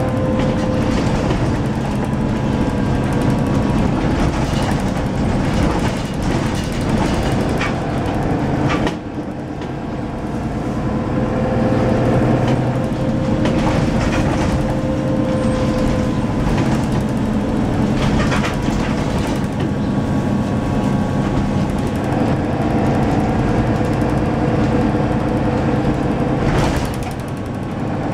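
Inside a moving Mercedes-Benz Citaro single-deck bus: the engine runs steadily under the floor, while the body and fittings knock and rattle over a bumpy road. The sound drops briefly about nine seconds in and again near the end, then the bus pulls on.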